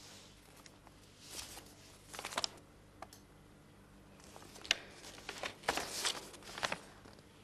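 Sheets of printed paper being handled as they are read: a few short, quiet rustles, over a faint steady hum.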